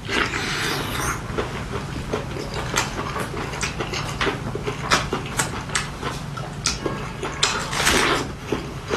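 A person eating close to the microphone: wet chewing and lip-smacking clicks, with two longer slurping sounds, one at the start and one about eight seconds in.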